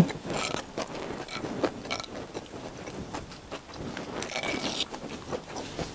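Close-up crunchy chewing of raw vegetable salad (karedok), with small clicks and crackles throughout. A metal spoon scrapes against the cobek (mortar dish) about four seconds in, and there is a sharp knock right at the start.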